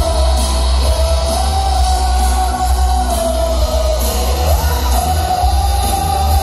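Cumbia music played loud through a party sound system, with heavy, steady bass and a held lead melody that steps between a few notes.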